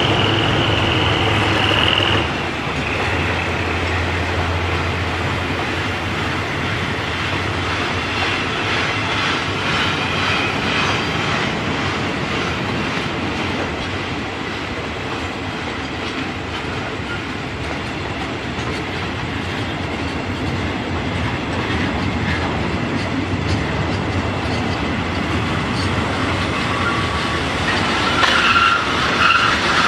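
Freight train's boxcars rolling past, wheels clattering over the rail joints. A low hum drops away about two seconds in, and a high wheel squeal rises near the end.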